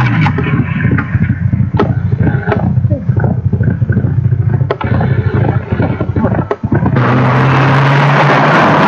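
Rally car engine revving hard as the car pulls away, its note choppy and uneven with many sharp clicks and pops. About seven seconds in it switches abruptly to a louder car coming at full throttle, a steady engine note under a dense rush of tyre and gravel noise.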